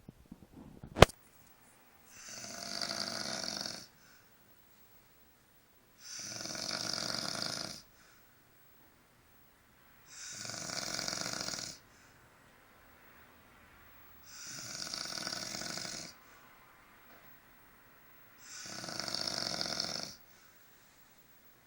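A sleeping man snoring: five long snores, each about two seconds, coming about every four seconds. A single sharp click about a second in is the loudest sound.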